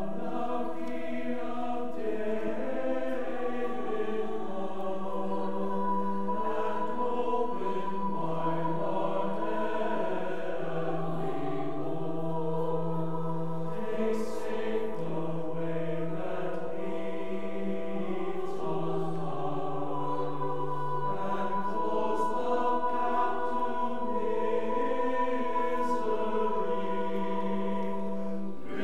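Church choir singing in parts, with long held low notes sounding beneath the voices.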